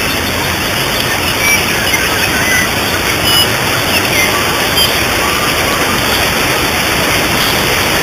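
Waterfall: the steady, even rush of falling water, unchanging throughout.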